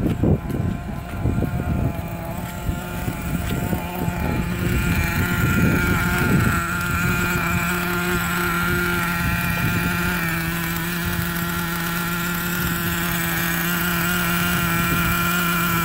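Small nitro glow engine of an RC car idling steadily with a fast, even buzz while it is being run in. Its pitch dips slightly about two-thirds of the way through. Knocks and handling noises come over it during the first several seconds.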